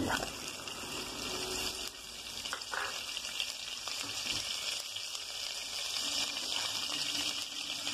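Butter sizzling as it melts in a preheated pan with a little oil: a steady frying hiss.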